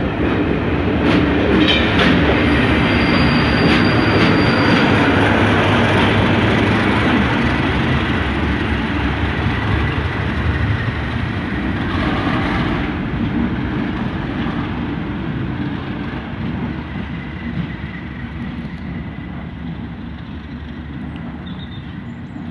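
Class 37 diesel-hauled test train running past, with its wheels clattering over the rail joints. About twelve seconds in the sound changes, and the train and its locomotive's engine fade steadily as they move away.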